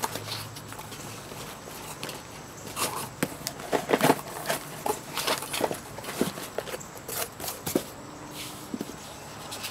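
Cardboard shipping box and packing being handled: irregular rustles, scrapes and small knocks of cardboard and paper, busiest in the middle stretch.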